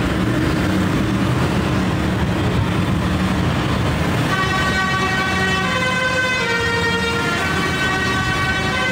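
Tractor engine running as it drives along the street, then from about four seconds in, vehicle horns sounding over it in steady overlapping tones that step between pitches.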